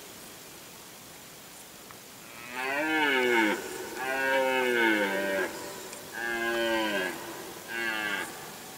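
Red deer stag roaring in the rut: a series of four deep roars beginning about two and a half seconds in, each falling in pitch, the last one short.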